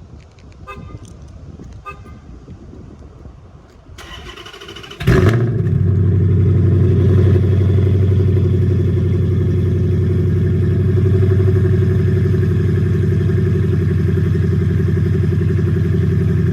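Chrysler 300 engine with long-tube headers and high-flow cats being started: a short crank about four seconds in, catching with a sharp loud burst, then settling into a steady, loud idle.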